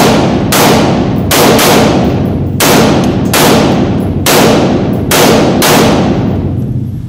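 AR-15-style carbine fired in single shots, about nine at irregular intervals of half a second to a second and a half, each shot echoing and dying away slowly in an indoor shooting range.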